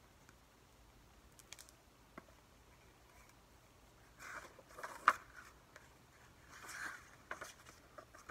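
Pages of a hardcover picture book being opened and turned: faint paper rustles and a few light clicks, with a sharp snap about five seconds in as the loudest sound.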